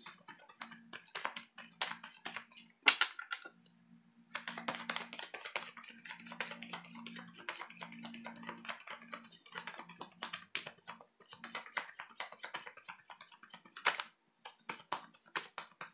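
A deck of tarot cards shuffled by hand: a quick, steady run of soft card clicks and slaps, pausing briefly twice.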